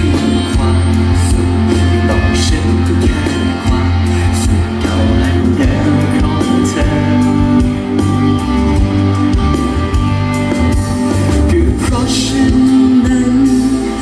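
Band music with a sung vocal line over guitar, a steady bass line and drums.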